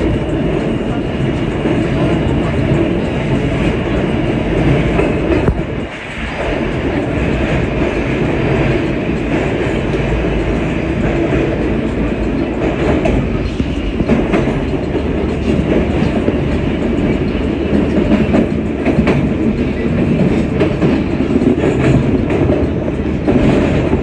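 R160A subway car running through the tunnel, heard from inside the car: a steady loud rumble of wheels on rail with clickety-clack over the rail joints. The level drops briefly about six seconds in.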